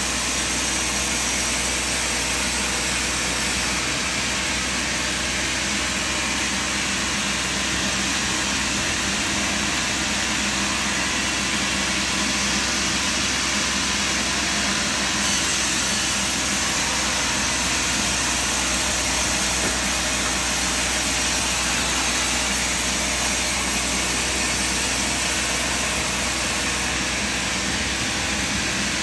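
Sawmill machinery running steadily: an even, unbroken machine noise with a low engine hum underneath, with no strikes or pauses.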